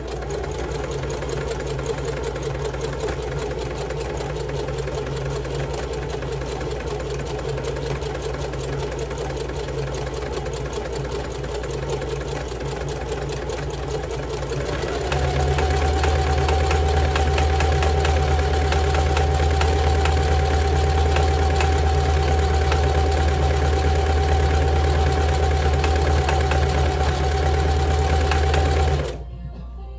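Singer Heavy Duty sewing machine running steadily, stitching through climbing rope. About halfway it grows louder, with a steady whine joining the motor, and it stops shortly before the end.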